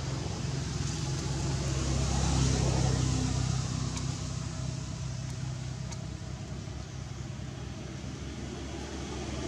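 A motor vehicle's engine running steadily. It grows louder about two seconds in, then slowly fades.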